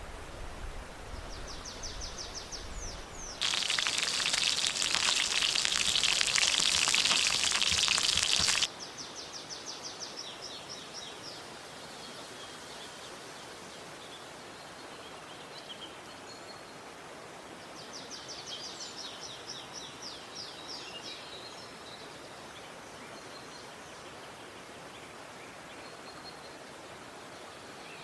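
A bird sings a high trilled song three times over a steady outdoor hiss. A few seconds in, a much louder dense crackling hiss cuts in abruptly and stops just as suddenly about five seconds later.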